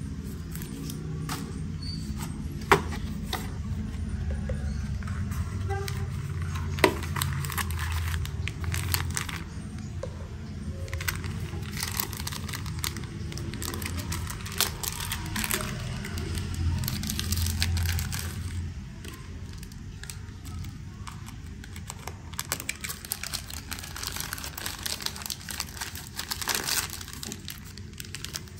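Unboxing handling sounds: packaging crinkling and rustling, with many small clicks and taps of plastic parts. Two sharp clicks stand out in the first seven seconds, over a low hum that stops about two-thirds of the way through.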